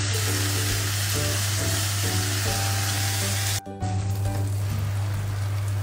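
Thinly sliced meat with chopped cili padi sizzling in a hot nonstick frying pan as a spatula stirs it. After a brief break about three and a half seconds in, bread laid into hot oil sizzles more softly with a light crackle.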